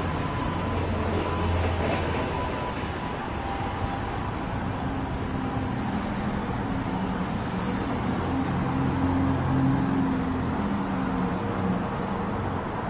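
City street traffic: buses and cars running and passing, with a steady low engine drone from the buses that stands out most in the middle stretch.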